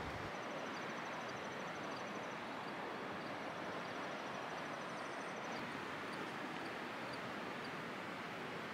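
Steady outdoor ambience: an even hiss of wind and waves on the shore, with a faint, high, rapid trill heard twice, each lasting about two seconds.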